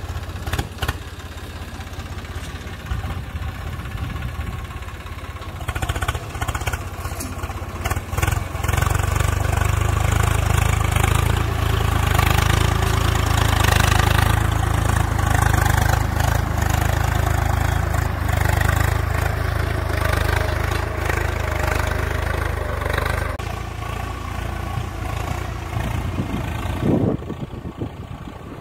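Swaraj 855 FE tractor's three-cylinder diesel engine running steadily under load while pulling a disc plough. It grows louder as the tractor comes past close by about halfway through, then fades as it moves away.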